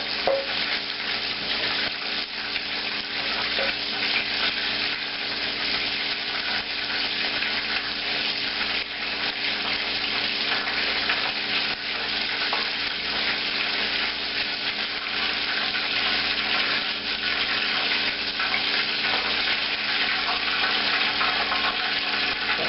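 Chicken pieces frying in hot oil in a pan, a steady dense sizzle with fine crackling throughout.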